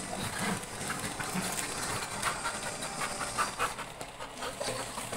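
A dog panting in short, irregular breaths as it clambers about.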